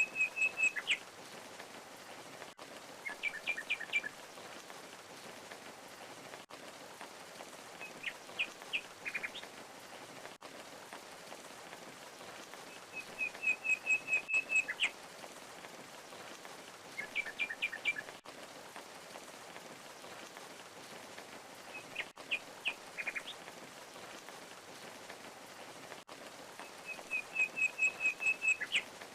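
Steady rush of a waterfall, with a songbird calling every few seconds in short phrases: a quick run of even, high chirps, then a few short sharp notes.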